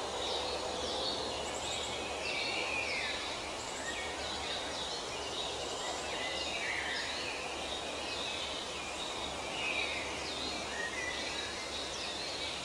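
Woodland ambience: small birds chirping and calling again and again over a steady outdoor hiss.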